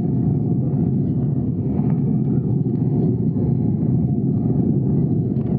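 Steady low rumble of an Airbus narrow-body airliner's jet engines and airflow, heard inside the cabin.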